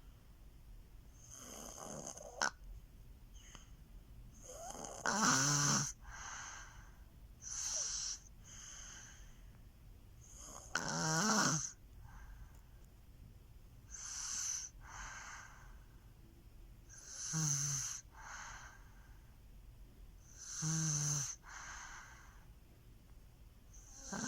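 Baby snoring in her sleep, one snore per breath about every three seconds. The louder snores carry a low buzzing pitch, with softer breaths between them. A single sharp click comes a couple of seconds in.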